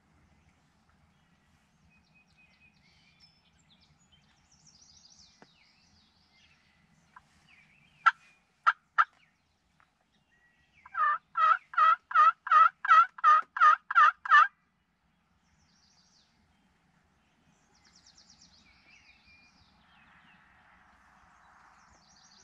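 Turkey calls: three short sharp notes about eight seconds in, then a run of about ten evenly spaced calls lasting three and a half seconds, with faint small-bird chirps around them.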